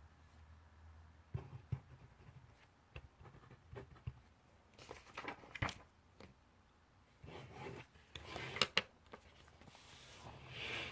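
Handwriting on paper: scratchy writing strokes with scattered small taps and clicks, and three louder stretches of scratching and paper rustling in the second half.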